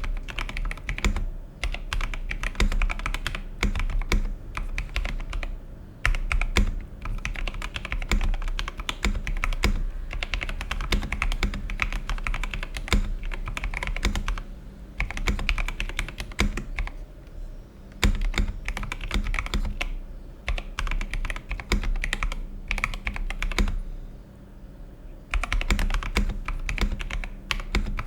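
Typing on an Epomaker TH80 mechanical keyboard with Gateron Pro Brown tactile switches: quick, continuous, irregular key clacks, with a short pause a few seconds before the end.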